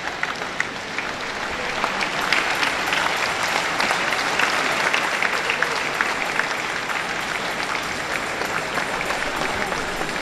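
Congregation applauding, many hands clapping together at a steady level.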